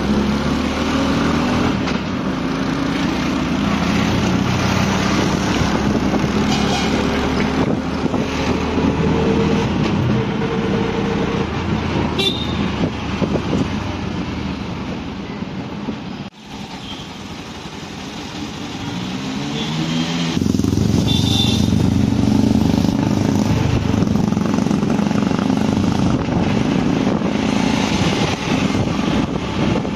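Busy city street traffic: motorbike and car engines running and rising in pitch as vehicles pull away, with a few horn toots.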